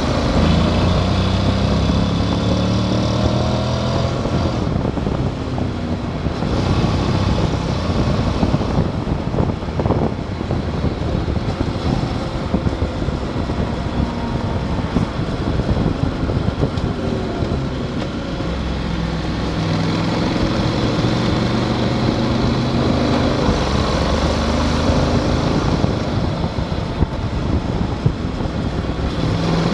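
Motorcycle engine running under way, its pitch rising and falling as the rider accelerates and changes gear, with steady wind rush on the microphone.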